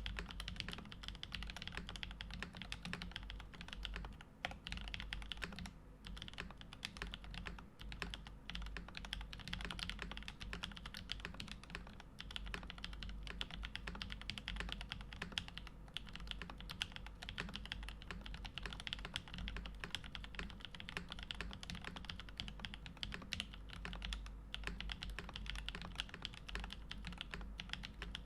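Continuous fast typing on a stacked-acrylic custom mechanical keyboard with lubed Kinetic Labs Husky linear switches, GMK keycaps and no foam dampening, a dense run of keystrokes with a deep sound.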